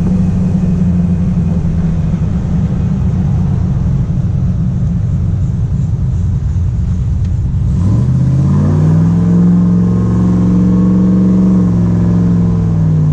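6.0-litre LS V8 with a Texas Speed 223/226 cam on a 111 LSA, breathing through Kooks headers and a Borla XR-1 muffler, running at low, steady revs. About eight seconds in, the revs climb and hold higher, then drop back near the end.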